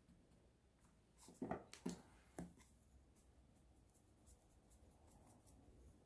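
A few sharp clicks and taps from drawing tools on a desk, bunched together about one and a half to two and a half seconds in, then a few lighter ticks, over low room noise.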